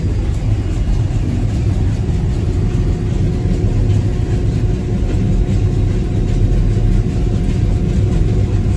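Sugar beet piler machinery and the beet truck at the end dump running as a load of beets goes up the conveyors: a loud, steady low mechanical rumble with a faint hum on top.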